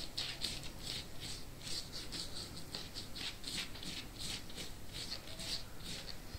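Silicone pastry brush swishing and dabbing over a thin pastilla sheet as melted butter is spread on it: soft, quick brushing strokes, about two to three a second.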